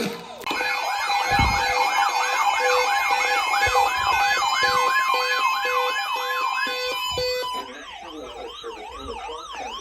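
Electronic siren sweeping rapidly up and down, about two and a half sweeps a second, over a lower tone that pulses on and off. About eight seconds in it switches to a slower, quieter up-and-down sweep.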